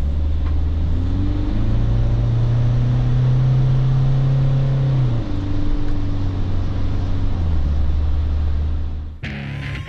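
Inside the cab of a Ford 2.0 diesel camper van cruising on a motorway: a steady engine hum and road noise, its low drone stepping in pitch a few times. Near the end it cuts abruptly to music.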